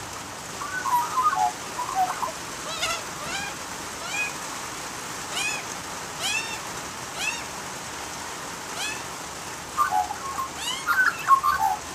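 Australian magpies warbling, with gurgling phrases about a second in and again near the end, and short high calls repeated about once a second in between, over steady rain.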